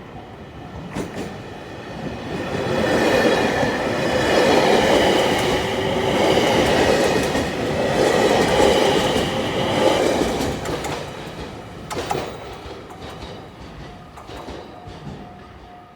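A train passing over a level crossing. It rises to a loud rush about two seconds in, holds for about eight seconds and then fades, with a few sharp clacks from the wheels over rail joints. The crossing's warning bell rings steadily before the train arrives and again as it recedes.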